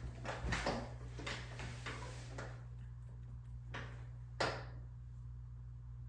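Handling noises from a person working at a wooden easel: rustling and soft knocks in the first couple of seconds, then one sharp click a little past four seconds in, over a steady low hum.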